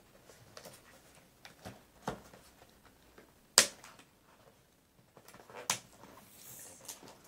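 A taped cardboard toy box being worked open by hand: a scattering of sharp clicks and snaps of card and tape giving way, the loudest about three and a half seconds in.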